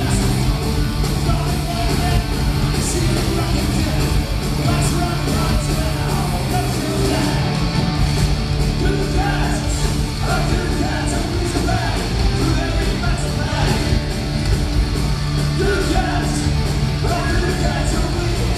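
Live heavy metal band playing: distorted electric guitars, bass and drums with cymbal crashes, with a singer's voice over the top, heard from within the crowd in a concert hall.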